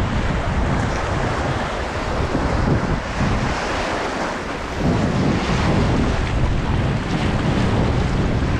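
River rapids: whitewater rushing steadily, with wind buffeting the microphone. The wind rumble eases for about a second a little before halfway, then comes back.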